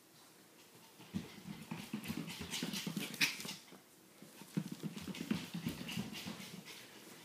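A Coton de Tulear puppy and a person running across a hardwood floor. There are two spells of quick, dense patter from feet and paws, one starting about a second in and the next about four and a half seconds in.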